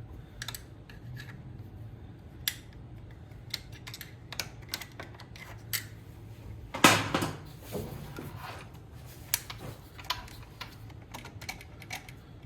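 Hand tools working on a GY6 engine's top end: scattered small metal clicks and clinks as fasteners are loosened evenly, with one louder clank about seven seconds in.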